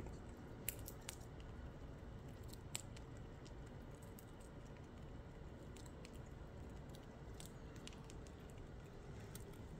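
A fox squirrel cracking and chewing sunflower seeds: faint crunching with scattered small, sharp clicks from the shells.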